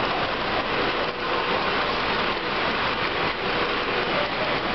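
O gauge three-rail toy steam locomotive and passenger cars rolling past close by on steel track: a steady rushing rumble of wheels on the rails with a faint motor hum.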